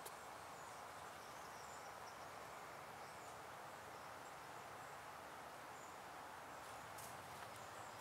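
Quiet woodland ambience: a faint steady hiss with a few faint, high, short bird chirps, and a few light clicks near the end.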